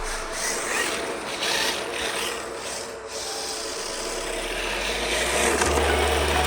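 Hard plastic drift tires of an RC drift car scrubbing and sliding on pavement, a rasping hiss that dips about three seconds in and then builds again. The deep bass of the backing electronic music comes back in the second half.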